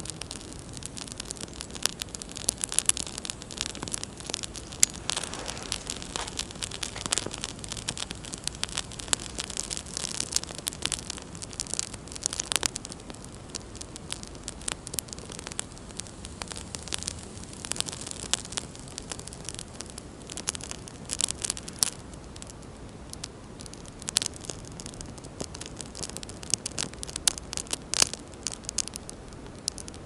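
Small kindling flames in pine needles and thin twigs crackling, with irregular sharp snaps and pops over a steady hiss; the damp kindling never catches into a proper campfire.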